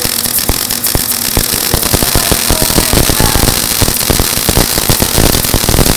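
Small 110-volt wire-feed welder's arc crackling steadily as a bead is laid on 14-gauge cold-rolled steel.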